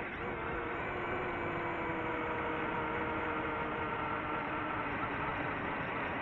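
Quadcopter drone motors and propellers whining at a steady pitch over a rushing hiss. A few held tones fade gradually over the first four seconds.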